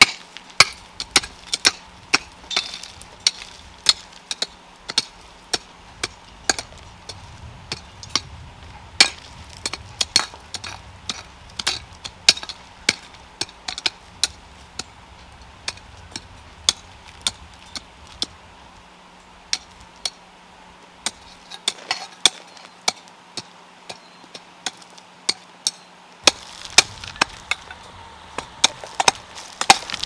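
Hand hoes chopping into stony soil, sharp irregular strikes about one or two a second with the clink of stones, easing off briefly past the middle.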